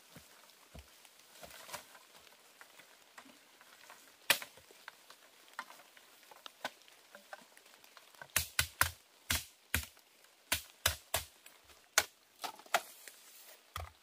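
Sharp knocks and cracks of wood as a machete hacks at sticks and brush in dry leaf litter. There is one crack about four seconds in, then a quick run of strikes, two or three a second, from about eight seconds in, over soft rustling of leaves.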